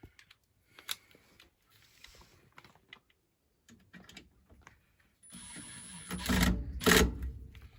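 Handling noise from work inside a furnace: scattered light clicks, then louder rustling with two knocks near the end.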